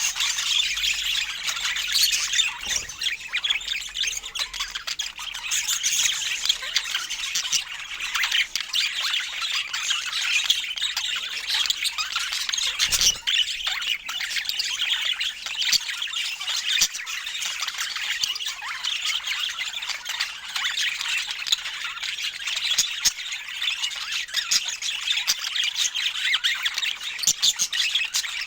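Pet budgerigars chattering and squawking without pause, a dense high-pitched warble of short chirps.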